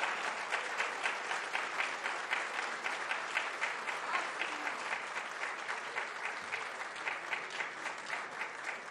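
Audience applauding: many people clapping in a dense, steady patter that eases off slightly toward the end.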